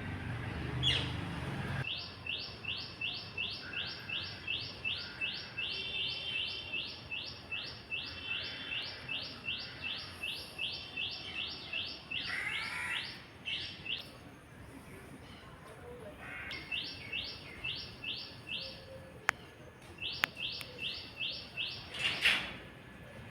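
A bird chirping a fast, even series of high notes, about three a second, in long runs with short breaks between them.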